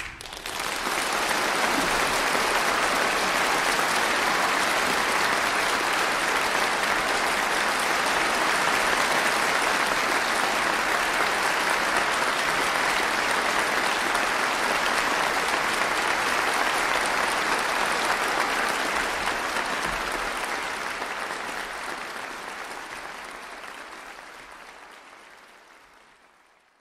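Concert audience applauding, a steady dense clapping that fades out gradually over the last several seconds.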